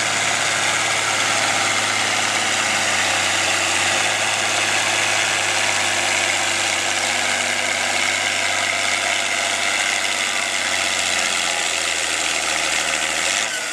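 John Deere four-wheel-drive farm tractor's diesel engine running steadily at low speed.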